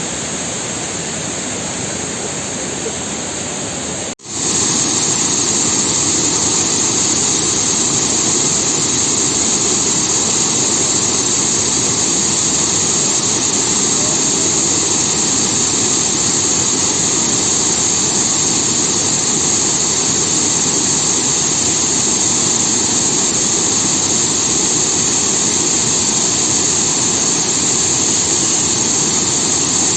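Waterfall crashing down in a steady, loud rush of water. It cuts out briefly about four seconds in and comes back louder.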